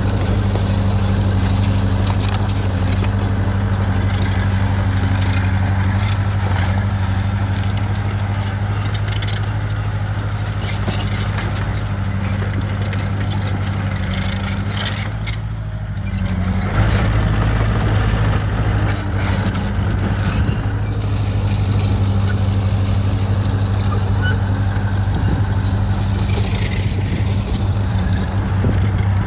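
Heavy diesel construction machine, such as a bulldozer, running steadily with a low engine hum and a lot of metallic clanking and rattling. The engine eases off briefly about halfway through, then picks up again.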